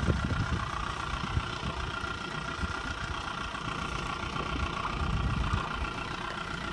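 Boat outboard motor running at idle with a steady low rumble, pushing the boat slowly along.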